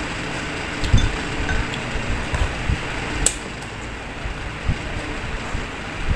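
Eating sounds: chewing and chopsticks knocking against food and a foil tray, with soft low thumps several times and one sharp click about three seconds in, over a steady background hiss.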